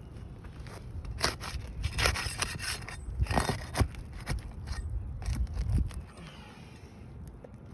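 Irregular scraping and crackling of asphalt roof shingles being worked and lifted by hand and tool during a wind-crease repair, quieter near the end.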